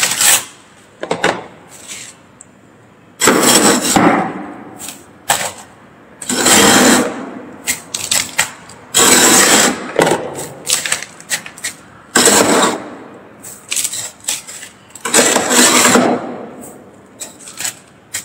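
Metal spoon scraping packed freezer frost off the freezer's floor and walls, in a run of rough scraping strokes: five long scrapes of about a second each, with shorter scrapes between them.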